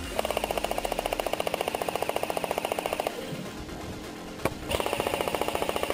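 Airsoft MG42 firing two long full-auto bursts, each a rapid, even rattle of shots. The first burst lasts about three seconds. A second burst starts after a short pause, with a single sharp crack just before it.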